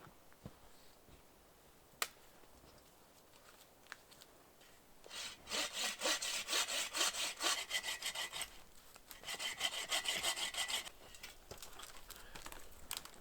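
Hand saw cutting wood in two runs of quick back-and-forth strokes, the first about three seconds long and the second about two, with a short pause between them. A single sharp knock comes about two seconds in.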